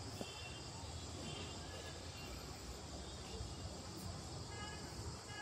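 Quiet outdoor ambience with faint distant voices calling now and then, about a second in and again near the end, over a steady low rumble.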